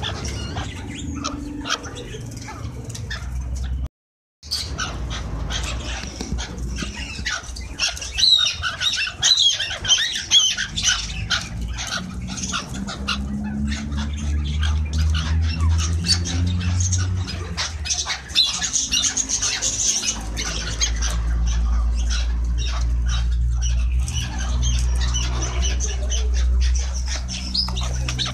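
Chukar partridges calling: rapid clucking and chattering notes in several bouts, with a short break about four seconds in. A low steady rumble runs underneath and grows heavier in the second half.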